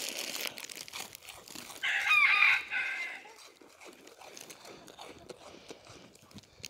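A rooster crows once, about two seconds in, over the quieter crunching of a goat chewing a graham cracker.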